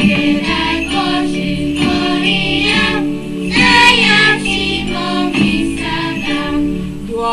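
A group of voices singing in chorus over a steady instrumental accompaniment of held notes.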